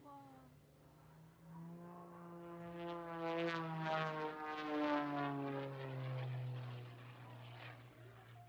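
A propeller airplane flying past. Its engine drone swells, drops in pitch as it passes about halfway through, then fades away.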